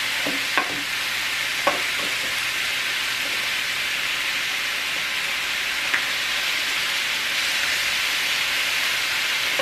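Chicken thighs sizzling steadily on a hot tabletop grill, with a few sharp clicks of metal tongs against the grill plate as the pieces are handled.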